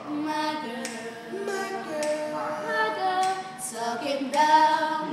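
Teenage boys singing together unaccompanied, holding long notes with several voices at once.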